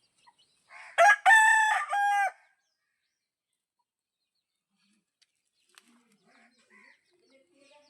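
Rooster crowing once: a loud cock-a-doodle-doo starting about a second in and lasting just over a second, ending on a drawn-out final note.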